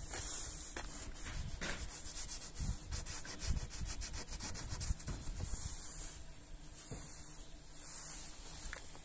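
Fingertip scratching and rubbing frost on a car windshield, a dry scraping made of many quick strokes in the first half, with slower rubs later.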